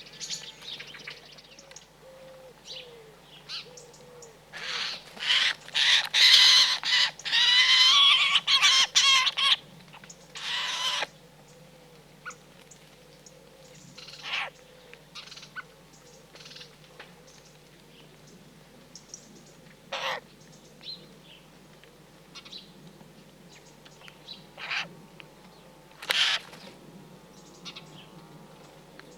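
Wild birds calling: a loud run of harsh, chattering calls about five to eleven seconds in, then scattered single sharp calls.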